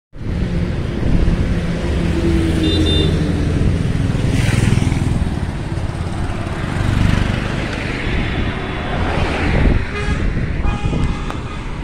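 Vehicle engine and road traffic noise while on the move, with a few short horn toots.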